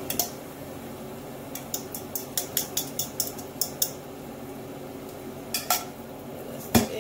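A metal utensil clinking against a bowl in a run of about ten light taps, roughly four a second, as the last of the beaten eggs is knocked out into the frying pan, with a few single clinks before and after, over a low steady hum.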